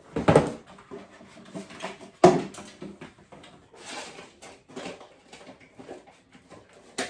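Rummaging for a box: two sharp knocks, the first right at the start and the louder about two seconds in, then scattered rustling and small clicks of things being moved, with one more sharp click near the end.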